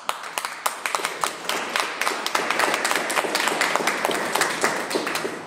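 Small audience applauding, the separate claps distinct, thinning out near the end.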